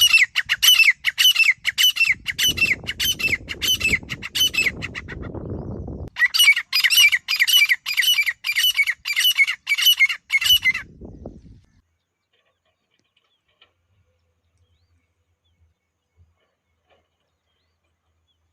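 Grey francolin calling: two runs of shrill, rapidly repeated notes, about three a second, each lasting roughly five seconds with a short break between. A low rumble runs under the end of the first run, and the last six seconds are near silence.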